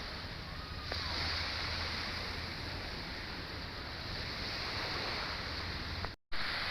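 Sea surf washing on a beach with wind, a steady rush of noise. The sound cuts out for a moment near the end.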